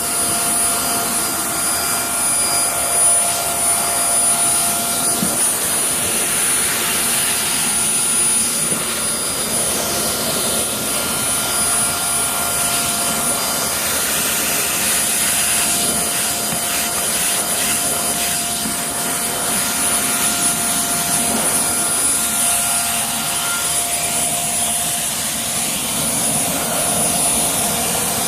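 Upright vacuum cleaner running steadily on carpeted stairs, a constant rushing noise with a steady high whine.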